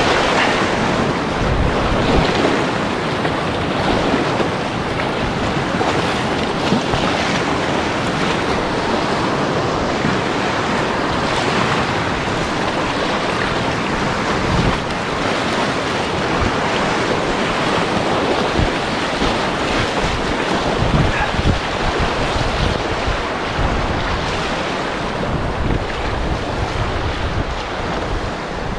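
Rushing whitewater of big river rapids, heard close from a paddleboard, a steady dense roar of churning water. Wind buffets the microphone with uneven low rumbles.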